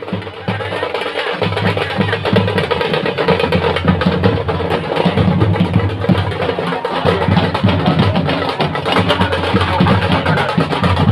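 Live dhol drums beating a fast, dense rhythm with a shehnai playing over them; the music swells up in the first second or so.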